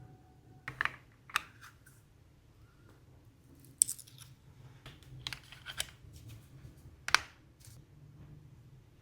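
About half a dozen sharp, separate clicks and taps from hands handling an AirPods Pro 3 charging case and its Pitaka aramid fiber case, the loudest about 4 and 7 seconds in.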